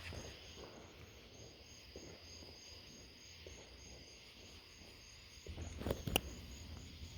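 Crickets chirping in a steady, high, rapid pulse, with one sharp pop about six seconds in.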